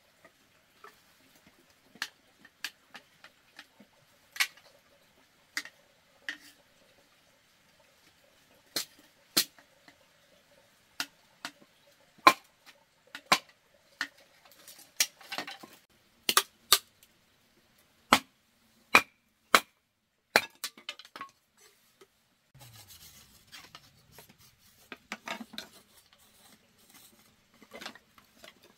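Irregular sharp knocks and clinks of hard objects being handled, about one a second. A stretch of rustling and scraping joins them about two-thirds of the way through.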